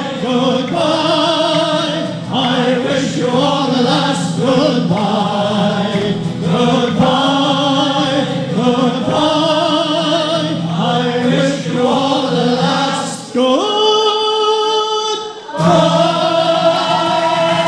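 Male voice choir singing in harmony, holding a long sustained chord near the end.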